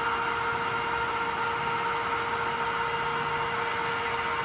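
Cadillac 14" x 28" geared-head engine lathe running at a steady spindle speed, its motor and headstock gearing giving an even, steady whine.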